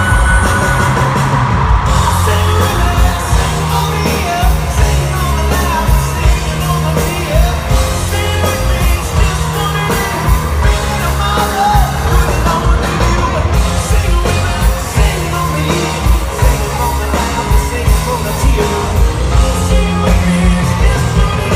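Rock band playing live at concert volume: a male lead singer over keyboard, electric guitar, bass and a steady drum beat.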